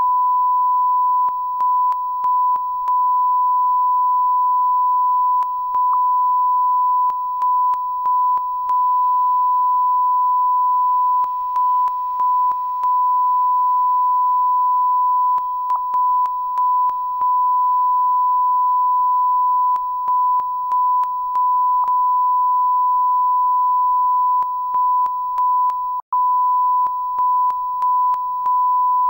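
A steady electronic test tone at one unchanging pitch, like a line-up tone on the soundtrack, broken by many brief dropouts that come in little clusters of two to four, with one short full gap near the end.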